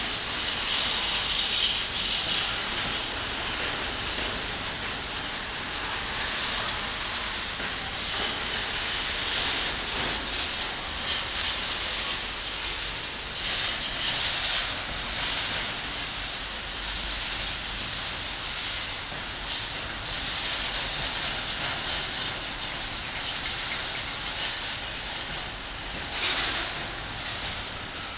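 Freight train of container wagons rolling past, its wheels on the rails giving a steady high hiss that swells and eases a little, briefly louder near the end.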